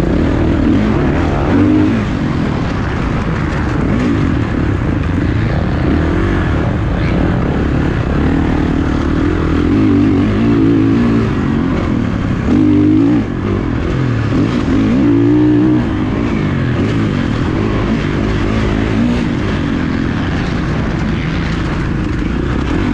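Motocross dirt bike engine racing, revving up and falling back again and again as the throttle is worked, with sharp rev sweeps about 12 and 15 seconds in.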